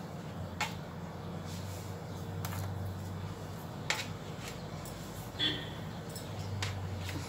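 A few short clicks and light taps as raw dough rounds are picked up by hand and set onto a metal baking tray, with a brief rustle about halfway through, over a steady low hum.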